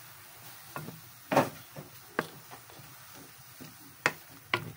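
Wooden spatula knocking and scraping against a wok while stirring chicken and tofu: a handful of sharp, separate knocks, the loudest about a second and a half in, and two close together near the end.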